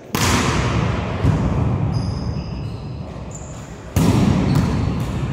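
Volleyball hit hard in a large gymnasium: a serve right at the start, another hit about a second later and a third loud hit about four seconds in, each ringing on in the hall's echo. Short high squeaks of sneakers on the court floor come in between.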